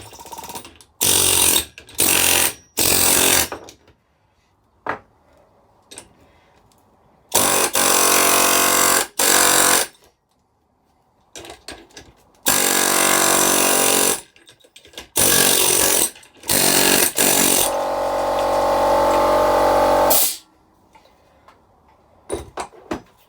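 Stanley pneumatic air hammer (air chisel) firing in a string of short bursts of rapid hammering, stopping and starting, as it chips components off a transformer part. A longer, steadier run comes a little before the end.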